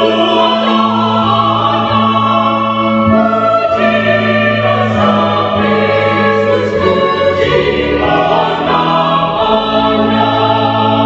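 Mixed-voice church choir singing a hymn in long held chords with keyboard accompaniment, in the closing phrase of the piece.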